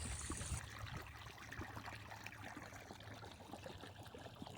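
Faint steady background hiss with small scattered ticks, fading slightly.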